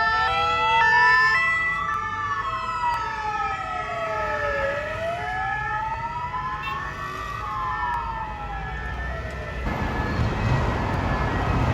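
Ambulance sirens: a two-tone siren alternating briefly at the start, overlapped by a slow wailing siren that rises and falls in sweeps a few seconds long. The wail cuts off near the end, leaving traffic noise.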